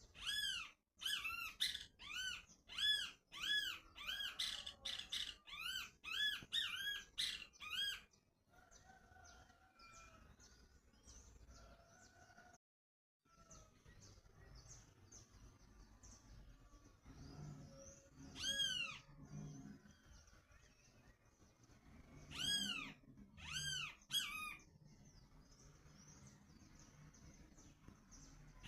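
Repeated high-pitched squeaky calls from a small animal, each rising and falling in pitch, about two a second for the first eight seconds, then a few more in short bouts later on.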